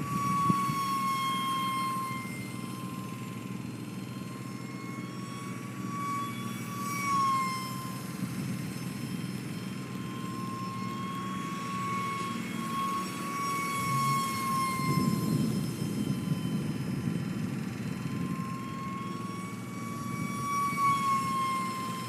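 Electric ducted fan of an E-flite UMX Habu 180 DF ultra-micro RC jet in flight: a steady high whine that dips slightly in pitch and comes back up every few seconds. Under it runs a low rumbling noise, with a sharp click about half a second in.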